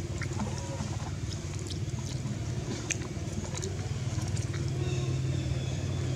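A motor running steadily, a low hum that grows a little louder about four seconds in, with scattered small clicks over it.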